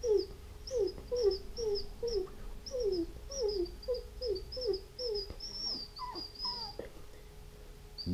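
A man imitating a crying dog with his mouth: a thin whistle made with the lower lip against the upper teeth, mixed with a whining voice. It comes as a string of short falling whimpers, about two a second, and stops about a second before the end.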